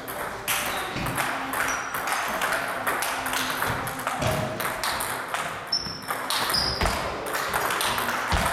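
Table tennis rally: balls struck by rackets and bouncing on the tables, a busy run of sharp irregular clicks from more than one table. Two short high squeaks come in the middle.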